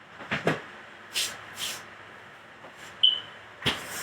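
Kitchen prep handling sounds: a quick double knock, two short scraping rustles, a brief high clink like metal or glass, then a sharp thud.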